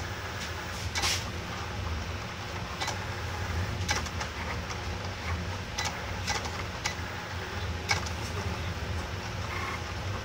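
Pen plotter (a marking machine converted to draw with a marker) running: motors whirring steadily as the pen carriage and paper rollers move to draw PCB traces, with scattered short clicks.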